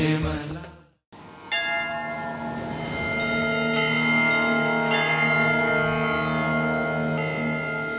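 The opening music fades out to a brief silence about a second in, then a soft instrumental intro begins: a held chord with bell tones struck several times and left ringing.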